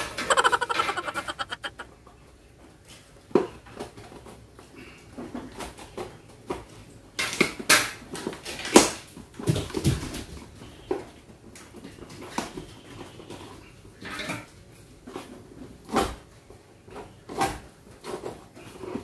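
Cardboard laptop box being handled and picked open at its taped end: scattered scrapes, taps and rustles of cardboard and plastic. A rapid rasping rattle runs through the first two seconds.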